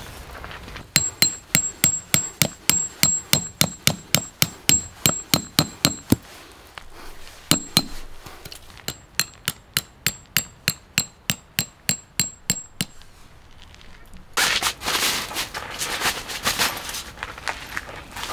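A hammer driving steel tent pegs into gravel: two runs of quick, ringing metal-on-metal strikes, about four a second, with a single strike between them. Near the end comes a few seconds of scraping noise.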